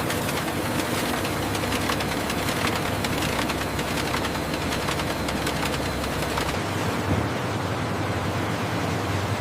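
Factory machinery running: a steady, noisy mechanical hum with a dense rattle of small clicks. About two-thirds of the way through, its deepest hum drops away and the sound changes character.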